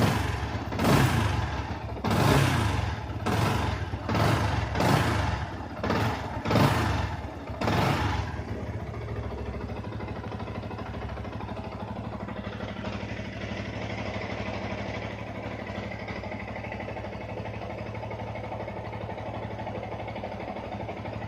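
Yamaha R15's single-cylinder engine revved in a series of about eight quick throttle blips, each swelling and falling back, then settling to a steady idle about eight seconds in.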